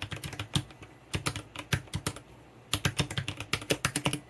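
Typing on an Eyooso Z11 60% mechanical keyboard with lubed Gateron Brown switches in a metal plate and plastic case: quick runs of key clicks, with a short pause about halfway through.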